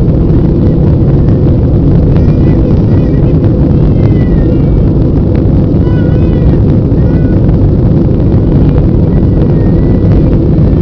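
Airbus airliner's jet engines and rushing airflow heard inside the passenger cabin: a loud, steady, deep roar during the climb after takeoff.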